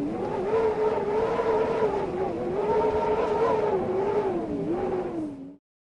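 A motor running with a whine that wavers up and down in pitch, then cuts off suddenly near the end.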